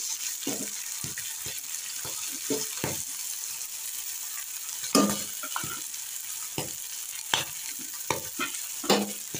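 Vegetables and peanuts sizzling in hot oil in a kadai while a metal spatula stirs them, scraping and knocking against the pan. The loudest knocks come about halfway and near the end.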